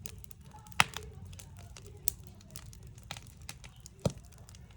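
Backyard wood fire crackling, with scattered small pops and two louder pops, one about a second in and one near the end.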